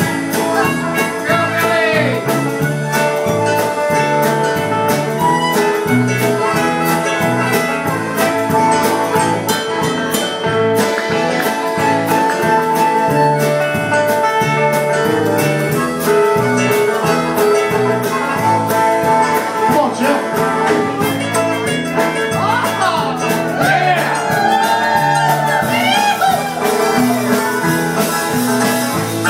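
Live acoustic band playing an instrumental break in a folk/bluegrass song: strummed acoustic guitar and bass keep a steady beat under held chords. About two-thirds of the way through, a lead line bends up and down in pitch.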